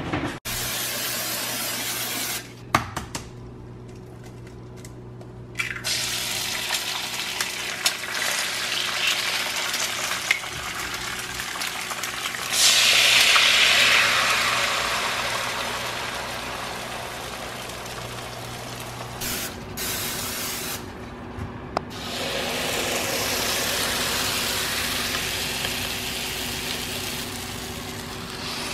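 Eggs sizzling in a hot frying pan, heard in several short cuts. The sizzle is loudest from about 13 seconds in, where liquid egg whites are poured into the pan, and then slowly dies down.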